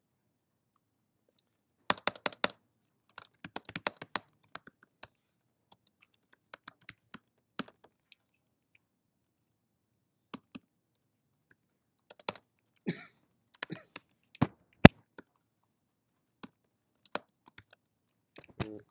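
Typing on a computer keyboard: irregular runs of key clicks, quick flurries broken by pauses of a second or more.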